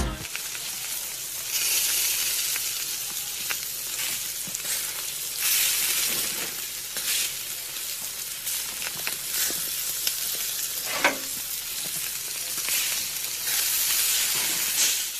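Meat sizzling on a barbecue grill: a steady frying hiss that swells and eases, with scattered crackles and pops.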